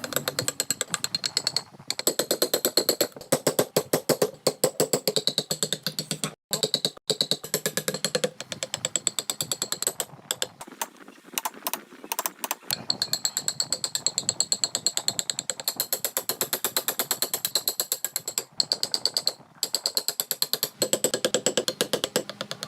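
A hand tool working wood in quick repeated strokes, about five a second, scraping or cutting, with a few abrupt breaks.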